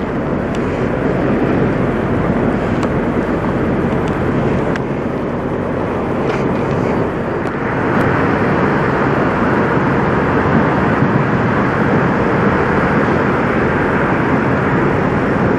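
Steady rumble of idling diesel semi-truck engines, growing a little louder and brighter about halfway through.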